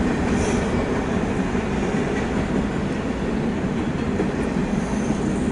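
Empty autorack cars of a CSX freight train rolling past, a steady noise of steel wheels on the rails.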